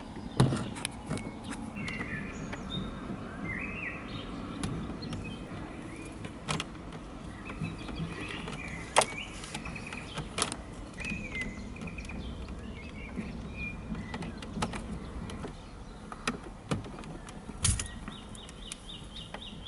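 Birds chirping now and then in the background, over a steady low ambient hiss, with scattered sharp clicks from handling small hand tools and wire close by.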